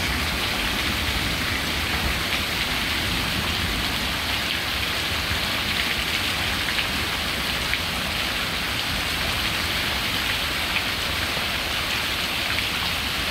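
Heavy rain falling steadily: an even, dense hiss with scattered ticks of drops.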